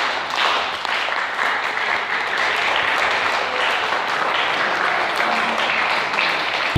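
Audience applauding, a dense, steady clapping between two pieces of dance music.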